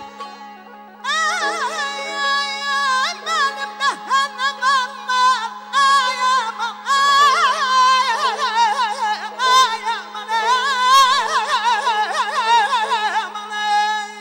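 A male Azerbaijani mugham singer (khanende) singing a long melismatic vocal passage full of rapid ornamental trills, coming in about a second in, over held accompanying instrument tones.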